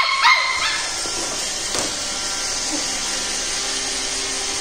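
iRobot Roomba robot vacuum running, a steady whirring hiss of its motor and brushes. Right at the start there are two short, high-pitched cries that rise and then hold.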